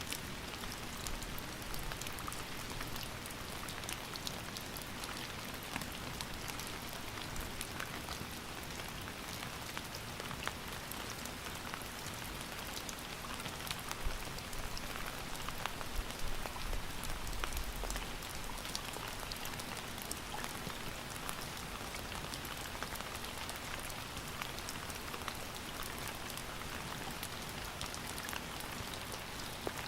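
Steady rain falling, an even hiss of water with many separate drops heard as small ticks.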